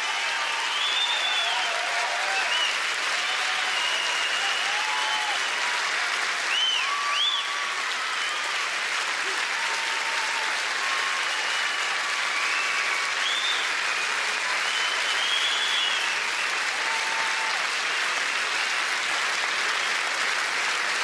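Large audience applauding steadily, with scattered cheers.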